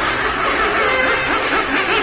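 Small electric RC cars running on an asphalt track: a steady noise with the motors' whine briefly rising in pitch several times as they accelerate.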